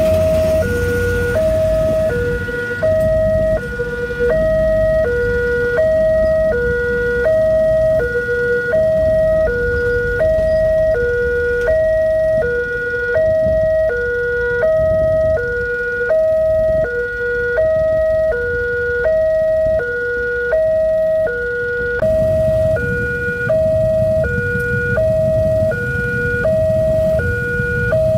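Railway level-crossing warning alarm sounding continuously, an electronic two-tone signal alternating between a higher and a lower note about once a second, warning of an approaching train as the barrier lowers. A low rumble of road traffic runs underneath and grows louder near the end.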